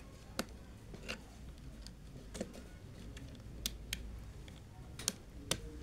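Scattered light clicks and taps of a screwdriver and wire against a contactor's plastic terminal block, about six spaced irregularly, as a neutral wire is fitted to the coil terminal and its screw tightened.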